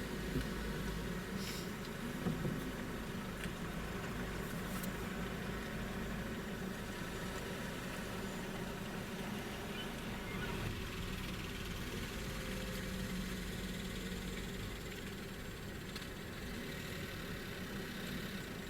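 Car driving slowly, its engine and tyre noise running steadily, with two brief knocks about half a second and two seconds in.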